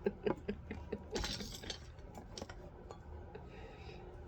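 Faint, scattered light clinks and ticks of small hard objects, several in the first two seconds, then fading to quiet room noise.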